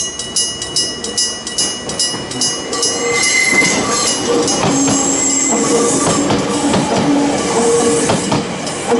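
Electric-bell level-crossing bell ringing, struck about three to four times a second. About three seconds in, a Gakunan Railway 8000 series electric train passes, with wheel noise and squealing tones that largely cover the bell. The bell strikes come through clearly again near the end.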